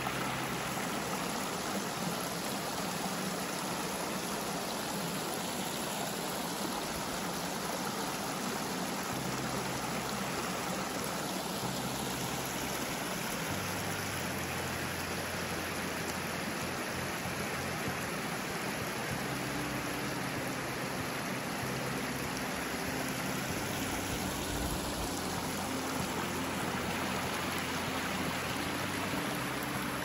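Shallow rocky creek flowing over a riffle: a steady rushing babble of water.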